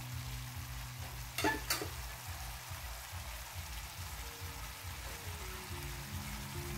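Chicken in coconut-milk sauce simmering and sizzling softly in a metal pan, under background music with a steady low beat. Two sharp clicks about one and a half seconds in.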